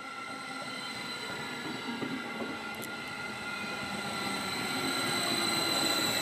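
Caltrain electric Stadler KISS train running on the rails, a steady rail noise with several high-pitched whining tones held steady over it, getting gradually louder toward the end.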